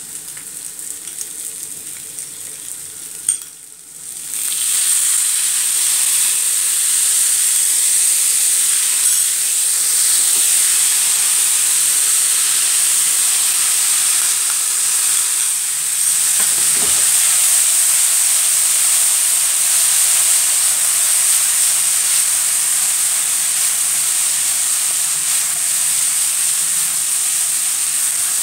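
Crushed boiled potatoes and red onion sizzling in hot oil in a frying pan. About four seconds in, the sizzle turns suddenly louder and stays loud as the vinegar, sugar and soy sauce mixture goes into the hot pan.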